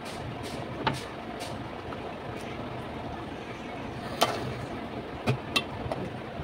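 Metal ladle stirring a thick curry in a large metal pot, with a few sharp clinks of the ladle against the pot: one about a second in and several around four to five and a half seconds in. A steady hiss runs underneath.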